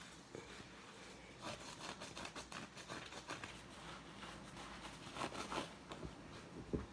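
A wet sponge loaded with Comet cleanser being squeezed and worked, giving faint crackling, squishing sounds in a quick run of small clicks, with a short knock near the end.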